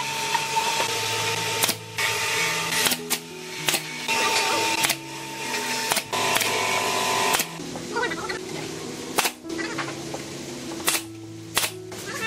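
Pneumatic nail gun firing single shots into wooden formwork boards, about ten sharp shots at irregular intervals, over background music.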